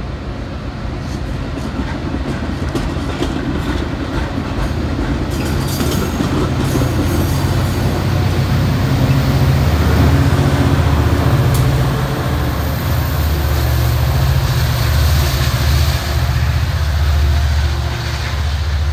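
Metra commuter train of stainless-steel bilevel gallery cars passing close by, steel wheels clacking over the rail joints. A deep rumble grows louder about halfway through.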